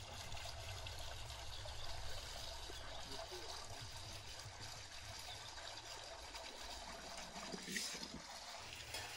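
Quiet outdoor ambience: a faint steady hiss over a low rumble, with a brief soft handling sound near the end.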